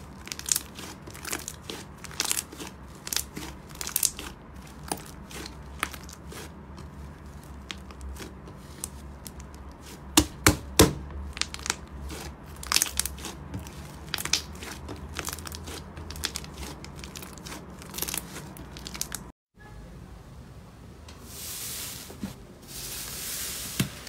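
Fingers pressing and kneading thick white slime: sticky, uneven crackling and popping clicks, several a second. After a brief break near the end, a different pink slime is squeezed with a softer, airy hissing squish.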